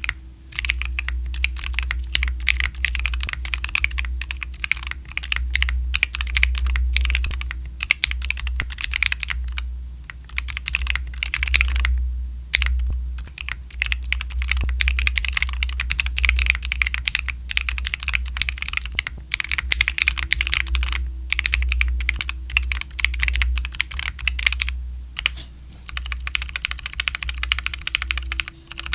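Continuous fast typing on a Tofu60 2.0 mechanical keyboard with factory-lubed WS Light Tactile switches, a carbon plate and PBT keycaps: dense clacking keystrokes with a few short pauses, over a steady low hum.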